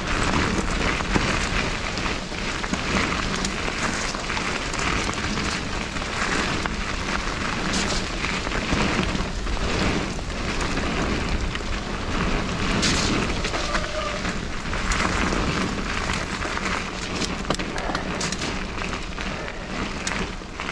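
Mountain bike ridden fast down a wet dirt trail: a constant rush of wind on the action camera's microphone over tyres hissing and crunching through wet dirt and gravel, with frequent rattles and knocks from the bike over bumps.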